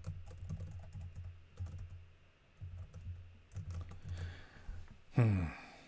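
Typing on a computer keyboard, a run of quick, light key clicks. About five seconds in, a short voice sound falls in pitch.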